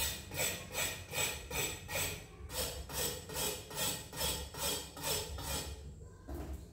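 Hand-worked rasping or scraping strokes at a kitchen counter, about two and a half a second in an even rhythm, about fifteen in all, stopping about six seconds in.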